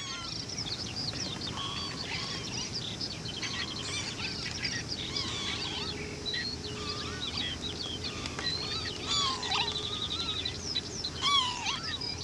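A chorus of wetland birds calling at once: many overlapping short whistles and chirps, a rapid trill twice, and louder slurred calls of northern lapwings near the end, over a low steady rumble.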